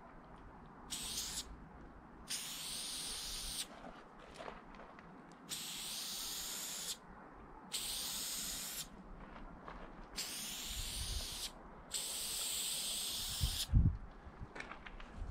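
Aerosol spray paint can spraying in six separate bursts of hiss, each about half a second to a second and a half long, with short pauses between them. A couple of dull thumps come near the end.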